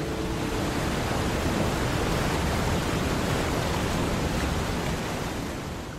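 A steady rushing noise with a low rumble beneath it, fading out near the end. The last note of the song dies away in the first half-second.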